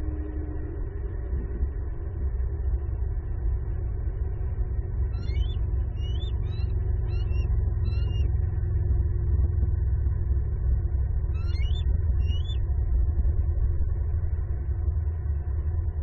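Steady low rumble with a bird's short, high chirping calls over it: a run of about five chirps around a third of the way in, and two or three more about three quarters through.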